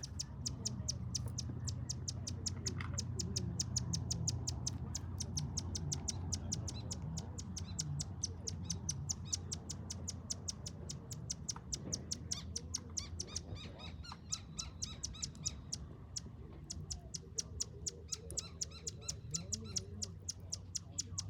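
A bird calling a long, even series of short high chips, several a second, over a low steady hum.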